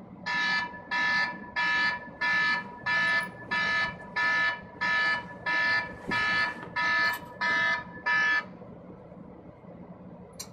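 Smartphone sounding a repeated electronic beep, about a dozen even beeps at roughly one and a half per second, which then stop. A single light click follows near the end.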